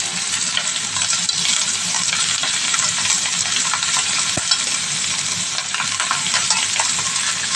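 Indian lettuce and cucumber sizzling in hot oil in a nonstick pan as they are stir-fried with a wooden spatula. Scattered light clicks from the spatula against the pan, with one sharper click about four and a half seconds in.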